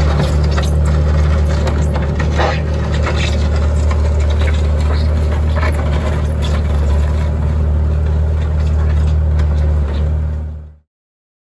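Bobcat S130 skid-steer loader's diesel engine running at a steady speed as the loader drives, with scattered light clicks and rattles. The sound fades out quickly near the end.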